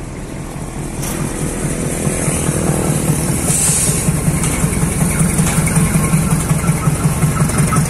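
Freight-train diesel locomotive engine running as it passes beneath, a steady rhythmic throb that grows louder over the first few seconds, with some hiss on top.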